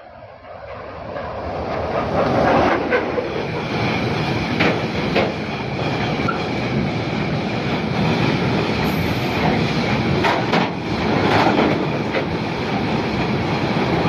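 Freight train hauled by a class 363 electric locomotive approaching and passing close by. The noise builds over the first two seconds, then holds as a steady rumble of wagons rolling past, with the wheels clacking at intervals.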